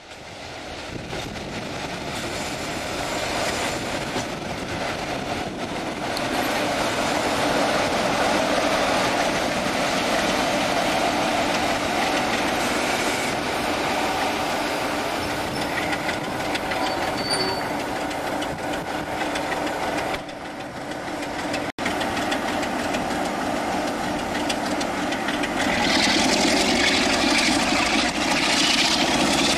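Class 47 diesel locomotive's Sulzer twelve-cylinder engine running steadily, then opened up about four seconds from the end: the engine gets louder and a turbocharger whine climbs in pitch as power is applied.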